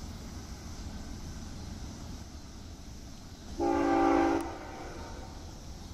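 Diesel locomotive air horn on an approaching BNSF GE ES44DC: one short blast of several notes sounding together, lasting under a second, about three and a half seconds in, over a steady low rumble.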